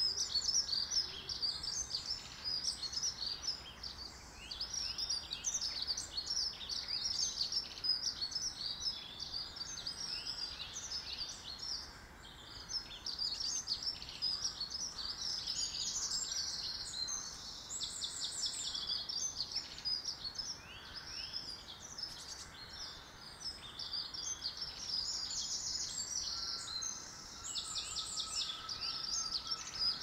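Several woodland songbirds singing together in a dawn chorus: a continuous stream of high, quick chirps and warbles, with fast rattling trills around the middle and again near the end.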